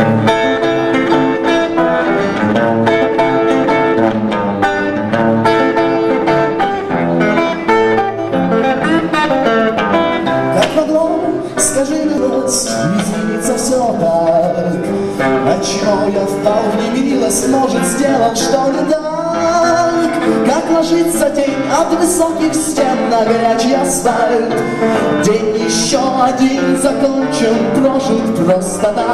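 Live rock band music led by an electric guitar, with steady cymbal strokes over it.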